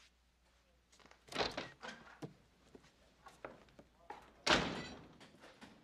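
A few knocks and thuds, the loudest about four and a half seconds in with a short decaying tail.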